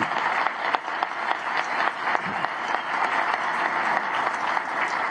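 An audience applauding: dense, steady clapping from many people.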